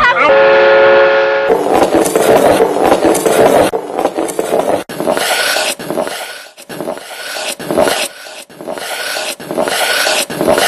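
Wooden lever-driven handcar, pumped by hand through wooden gears, rolling on asphalt: a rasping, rubbing rattle of wood gears and wheels that swells and drops in uneven pulses about once a second. It is preceded by a brief steady horn-like tone in the first second.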